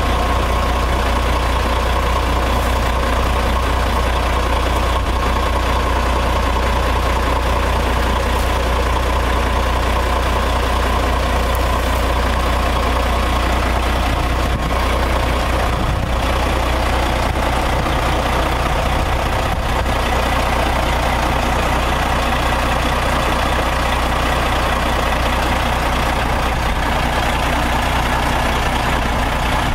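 A 2005 Peterbilt 379's diesel engine idling steadily.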